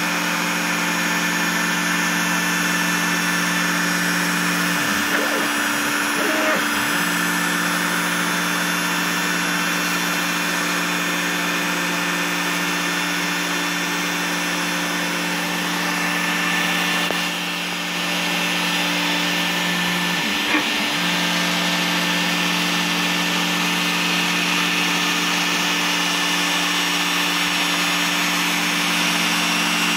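Bosch Colt trim router on an OX CNC machine running steadily at high speed, its 1/32-inch single-flute bit cutting into foam board: a constant motor whine with hiss. Brief warbling sweeps in pitch come about five seconds in and again about twenty seconds in.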